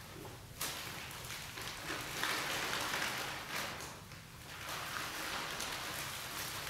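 Clear plastic packaging film and paper of a costume crinkling and rustling as the wearer moves and shakes it, in uneven surges, loudest from about two seconds in.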